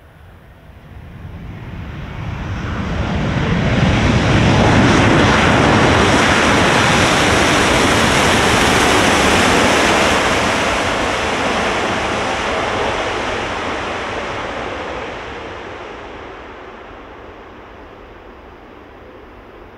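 Boeing 787-9's Rolls-Royce Trent 1000 jet engines roaring during the landing rollout as the airliner passes by. The roar builds from about a second in, is loudest through the middle, then fades over the last few seconds as the plane moves away.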